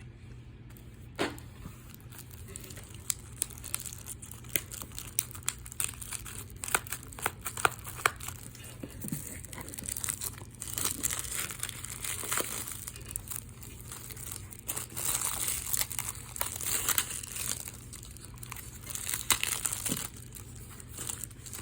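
Plastic packaging being crinkled and torn off by hand, with many small irregular clicks and crackles that get busier about halfway through. A faint steady hum runs underneath.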